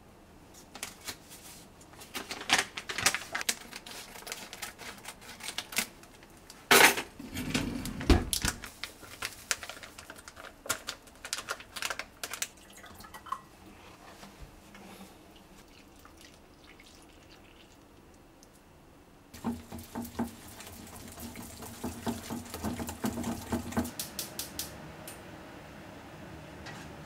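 Kitchen handling sounds: a paper bag rustling, then a series of clinks and knocks of a glass measuring cup, bowls and utensils with some water. There is a couple of louder knocks about seven to eight seconds in, and a stretch of quick, busy clicking in the second half.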